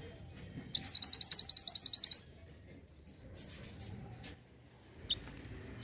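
A songbird singing a loud, fast trill of about a dozen quick rising notes lasting about a second and a half, followed by fainter high chirps.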